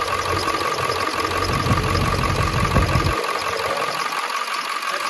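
Ford 7.3-litre Power Stroke V8 turbo-diesel idling steadily, heard close up under the open hood, with a low rumble that drops away about three seconds in.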